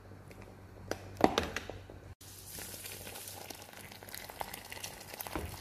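A metal slotted ladle knocks a few times against the pot as it stirs the yogurt sauce, about a second in. After a short break, lamb is boiling in the jameed (yogurt) sauce with a steady bubbling crackle.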